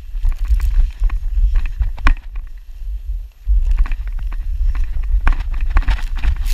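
Body sliding fast through deep snow while glissading: a continuous rushing and scraping hiss with wind buffeting the body-worn camera's microphone, and scattered knocks and crunches. The rush drops off briefly about three seconds in, then picks up again and grows hissier near the end.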